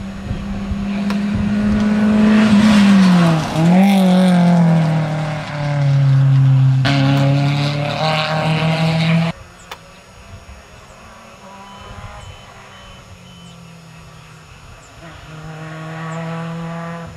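Rally car engine running hard as the car passes, its pitch dipping sharply and recovering about three and a half seconds in, then settling lower. The sound cuts off abruptly about nine seconds in. After that a rally car engine is heard more faintly, growing louder near the end.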